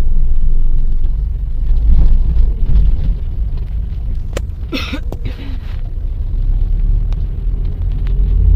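Car driving, heard from inside the cabin: a steady low rumble of engine and road noise. About halfway through there is a brief, sharper higher-pitched sound.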